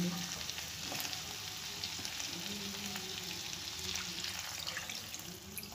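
Chicken pieces sizzling in hot oil in a non-stick pan: a steady frying hiss with a few faint clicks.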